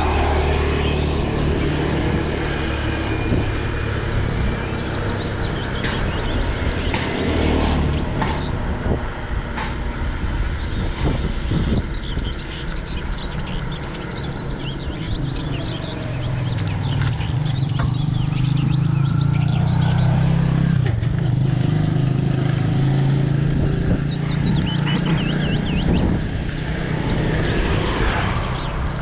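Bicycle tyres rolling over the road surface: a steady low rumble with scattered small clicks and knocks.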